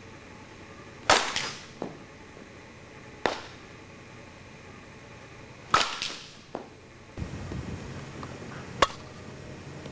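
A softball bat hits pitched softballs three times, about two to two and a half seconds apart. Each hit is a sharp crack with a short ring, followed by a fainter knock. Later the background changes and one more single sharp crack comes near the end.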